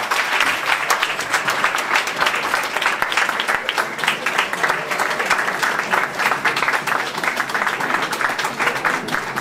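Audience applauding, many people clapping at once in a steady, dense patter.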